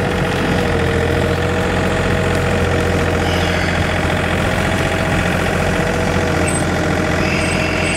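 John Deere 3320 compact tractor's diesel engine running at a steady pitch as the loader bucket plows snow.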